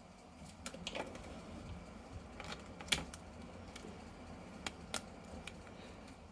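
Faint, irregular clicks and light taps of small plastic toys being handled, with a sharper click about three seconds in.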